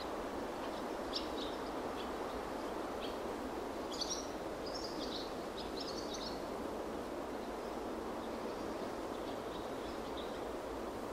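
Steady rushing background noise with a small bird chirping over it in several short, high calls during the first half, and faintly again near the end.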